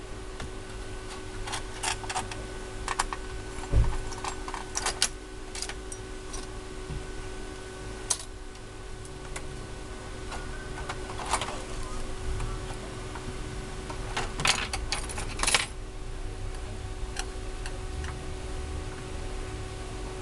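Scattered small clicks and metallic clinks as a screwdriver, screws and a PS4 motherboard with its metal bracket are handled during disassembly, with a few sharper knocks as the board is lifted and set down. A steady low hum runs underneath.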